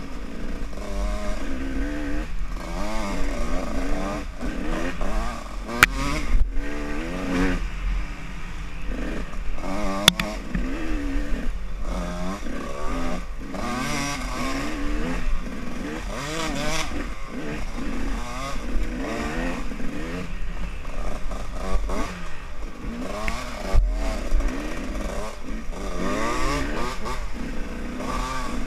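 Off-road motorcycle engine heard close up from the rider's own bike, its revs rising and falling constantly with the throttle on a rough trail. A few sharp knocks from bumps come through, about six and ten seconds in.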